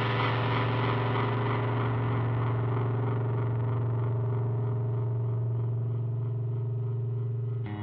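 Experimental electric guitar music: a single heavily distorted, effects-laden chord held as a steady drone, its bright top slowly dulling. It cuts off right at the end as new notes begin.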